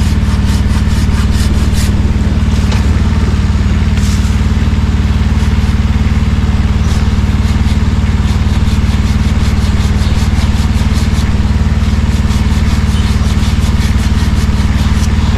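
Bucket truck's engine running steadily to power the aerial lift. At times it carries the rapid, evenly spaced rasping strokes of a pruning handsaw cutting through a limb, in runs near the start and again near the end.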